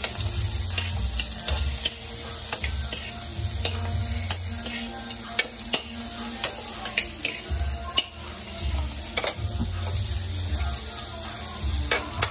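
Garlic and carrots sizzling in hot oil in a frying pan, with a spatula clicking and scraping against the pan at irregular moments as the vegetables are stirred.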